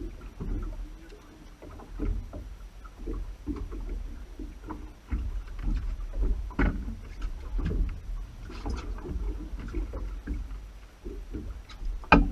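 Boat sounds at sea: water sloshing with irregular low rumbling and scattered knocks and bumps, and one sharp knock near the end.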